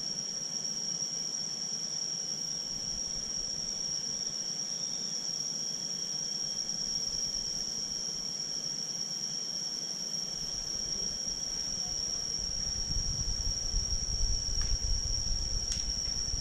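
Insects droning in one steady, unbroken high-pitched tone. A low rumble rises in the last few seconds.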